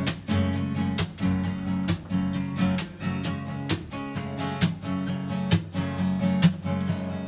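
Acoustic guitar strummed in a steady rhythm, chords ringing between the strokes: the instrumental intro of a song before the vocals come in.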